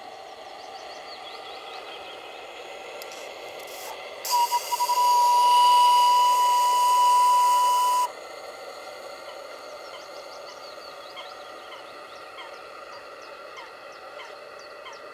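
Small steam whistle on a model steam launch: a couple of quick short toots about four seconds in, then one steady, hissing whistle blast of about four seconds that cuts off sharply.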